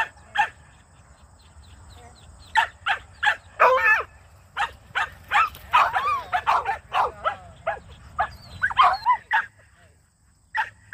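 Dog barking at sheep: after a short pause, a quick, irregular run of short barks, a few of them drawn out longer, stopping just before the end.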